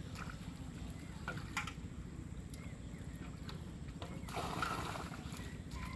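Pond water sloshing and splashing, with a few small splashes early on and a louder slosh about four seconds in.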